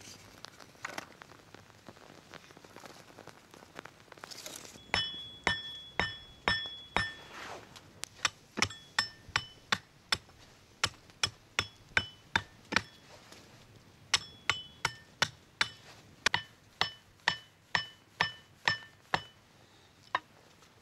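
Hatchet chopping a wooden stick: sharp strikes about two a second, each with a short metallic ring, in two long runs with a brief pause between.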